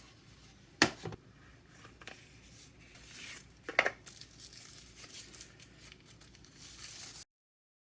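Plastic packaging crinkling and tearing as small tool-kit items are unwrapped, with two sharp clicks, one about a second in and one near four seconds. The sound cuts out abruptly near the end.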